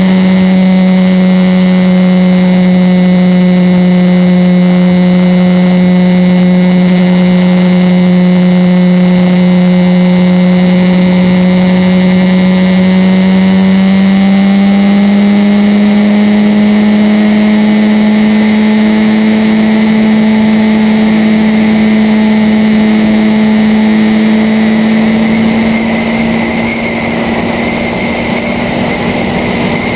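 Motorcycle engine heard from on board, running at a steady cruise with an even hum. The pitch rises slightly about halfway through, and the sound gets a little quieter near the end.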